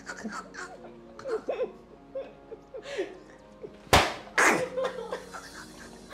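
A single sharp slap of a soft flour tortilla hitting a man's face about four seconds in, the loudest sound here, followed by laughter, over background music.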